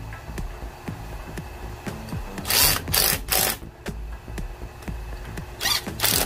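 Compressed air hissing out in short bursts from a tire changer's pneumatic controls: three quick blasts about two and a half seconds in and three more near the end, over a steady low hum and light mechanical clicks.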